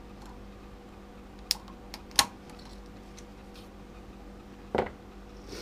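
Sharp metal clicks as the snap ring retaining the governor is worked off the output shaft of a Ford AOD transmission, twice about a second apart, then a duller knock near the end, over a steady low hum.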